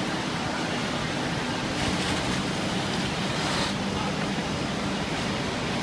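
Conveyor-fed wood sanding machine running steadily with a low hum as a curved wooden table leg is fed into its sanding rollers. A louder hiss rises for about two seconds in the middle.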